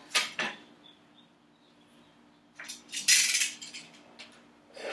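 Metal ruler and utility cutter clinking on kraft card. Then, about two and a half seconds in, a scrape of about a second as the blunt back of the cutter is drawn along the ruler to score a fold line, followed by small clicks and rustles of the card.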